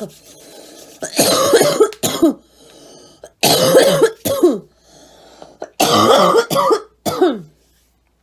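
A young woman coughing in repeated fits: three hard bouts about every two and a half seconds, each ending in a short cough that falls in pitch, with breaths drawn in between.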